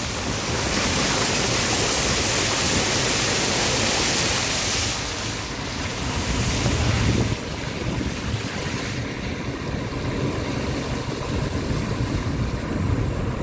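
Steady rushing hiss of a car driving along a rain-flooded road: tyres throwing water and wind noise. The hiss drops in level about seven seconds in and loses its highest part a little later.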